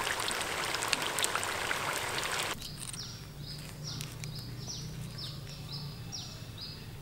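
Spring rolls deep-frying in a wok of hot oil: a dense sizzle full of small crackles that cuts off suddenly about two and a half seconds in. After that come repeated short, high, falling chirps, about two a second, over a low hum.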